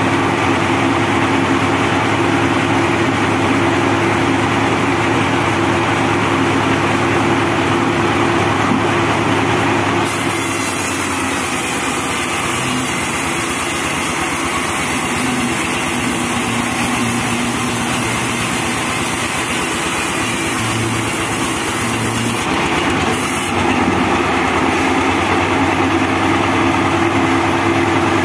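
Diesel engine driving a homemade band sawmill, running steadily with the band saw turning free and not cutting. A high hiss joins about ten seconds in and stops near the end.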